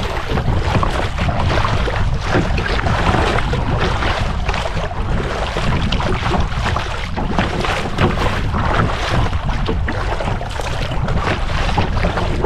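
Strong wind blowing over the microphone, with choppy lake water slapping and splashing against a kayak's bow.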